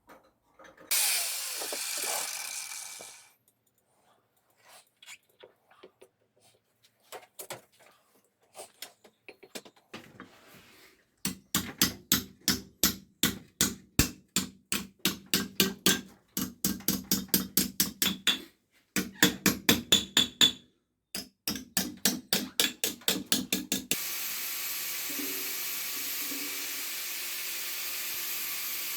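Hammer striking a steel patch plate against an exhaust pipe to bend it to the pipe's curve: runs of rapid, ringing metal-on-metal blows, about four a second, with short pauses between runs. A loud brief rasping noise comes about a second in, and from about 24 s a steady hiss with a low hum takes over.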